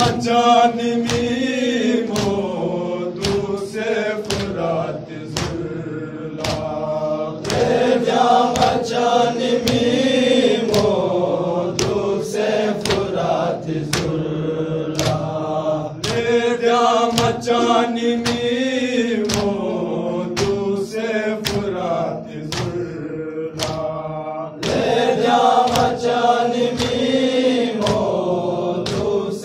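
Men's voices chanting a noha, a Shia lament, in Balti, in phrases that rise and fall and repeat about every eight seconds. Sharp chest-beating slaps of matam keep a steady beat under the chant, one to two a second.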